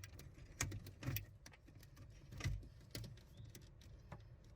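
A handful of short plastic clicks and knocks, the loudest about halfway through: an RJ45 Ethernet plug being unlatched and pulled out of a PLC CPU module.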